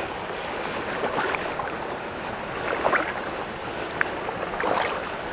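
A person wading slowly through shin-deep creek water: a few soft sloshes and splashes as the legs move, over a steady hiss of outdoor background noise.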